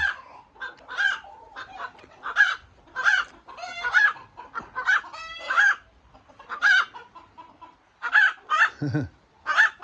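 Chickens clucking and cackling, a rapid run of short calls one after another, loud enough to make the barn noisy. A brief lower call breaks in near the end.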